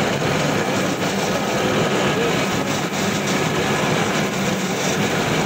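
XGJ560 sawdust pellet mills and their pellet conveyor running at full production: a loud, steady mechanical din with a low hum underneath.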